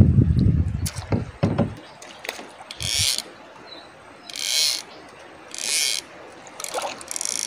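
Fishing reel ratcheting in four short bursts, the last one longest, while a hooked fish bends the rod. A low rumble with a few knocks comes first.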